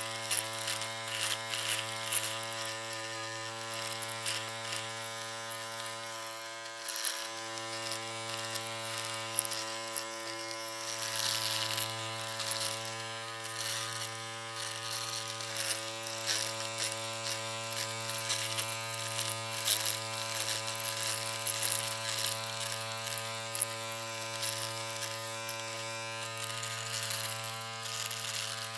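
Electric shaver running with a steady, slightly wavering buzz and irregular crackling on top. It dips briefly about seven seconds in.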